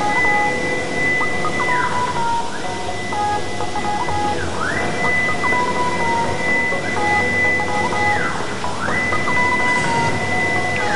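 CNC wood router cutting a panel: its Yaskawa servo axis drives whine, rising in pitch as the gantry speeds up, holding a high steady tone through each straight run and falling as it slows, about four moves in all. Under the whine runs the steady noise of the spindle cutting the wood.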